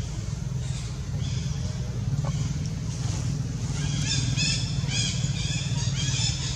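A steady low engine-like rumble, with a quick run of short, high chirps repeating several times a second from about four seconds in.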